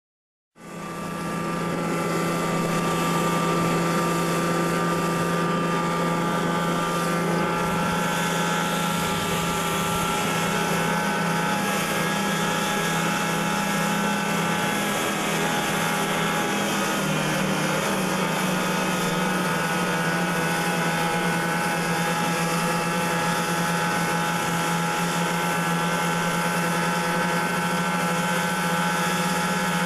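Snowmobile engine running steadily at speed, heard from on the moving machine, with a steady high hiss beneath it. The sound fades in about half a second in, and the engine note drops slightly about 17 seconds in.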